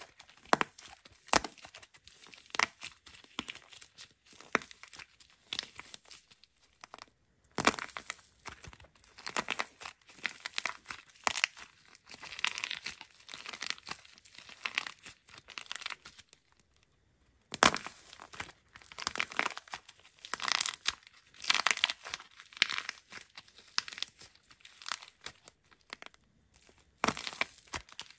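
Dried, painted plaster clay shell cracking and peeling off a soft foam-clay core as fingers squeeze it: dense crisp crackling and tearing, pausing briefly twice.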